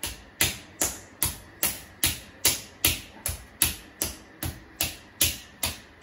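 Fists punching a man's bare stomach in a fast, even rhythm, about two and a half sharp smacks a second.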